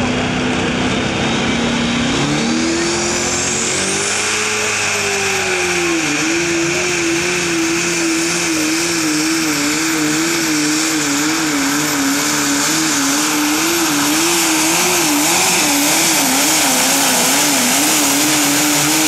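Competition pulling tractor's engine revving up as the pull starts, then held at full throttle under load while dragging the weight-transfer sled, with a high whine climbing alongside it. The engine note holds with a steady wavering in pitch, then drops off at the very end.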